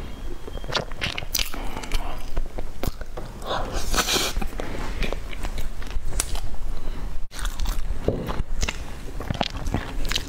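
Close-miked eating: a person biting and chewing bread dipped in a dark sauce, with many short crunchy, crackly bites.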